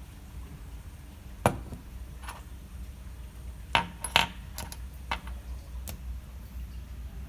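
Sharp clicks and clinks of small hard objects knocking together, about seven spread over several seconds, the loudest about one and a half seconds in, over a low steady hum.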